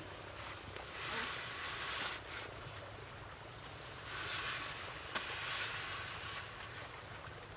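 Dry straw thatch rustling and crackling as it is pressed and smoothed onto a roof by hand. There are two bouts of rustling, each with a sharp snap or tap.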